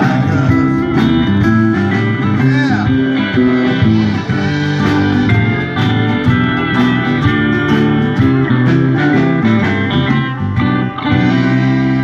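Live country band playing an instrumental passage: pedal steel guitar, banjo, electric and acoustic guitars over drums, settling into a held chord near the end.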